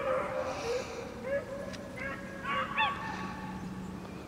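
Beagles baying while running a rabbit: a string of short, pitched, honking bawls, several in quick succession near the middle, over a steady low hum.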